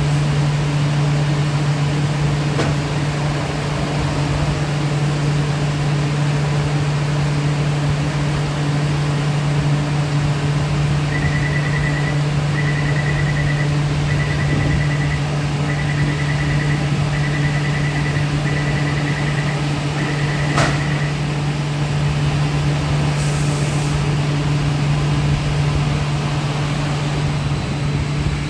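Taipei Metro Wenhu line train standing at the platform, its onboard equipment giving a steady low hum. About eleven seconds in, the door-closing warning beeps seven times over about ten seconds, and a single sharp click follows as the beeps end.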